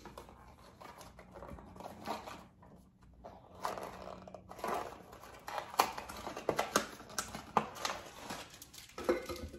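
Crinkling and light clicking of a mystery-pin blind-bag packet being handled and felt in the hands. It is faint and sparse at first, then busier from about three and a half seconds in.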